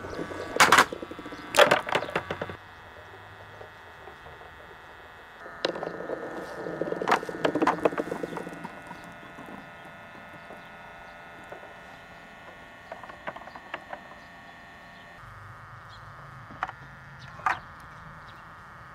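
Clear Dragon Ball replica balls rolling and clacking down a wooden track with drilled holes, knocking against each other and the wooden rails. There is a burst of sharp clacks in the first couple of seconds, a denser clatter around six to eight seconds in, then a few scattered clicks over a faint steady hum.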